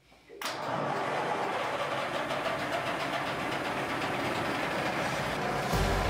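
DAF marine diesel engine running just after its first start in six months, with a rapid, even clatter. The sound starts abruptly about half a second in, and near the end it turns louder and deeper.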